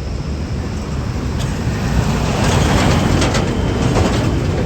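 A large tour bus driving past close by: a heavy engine rumble that swells from about a second and a half in and peaks around three to four seconds in, with a hiss mixed in at its loudest. No horn is sounded.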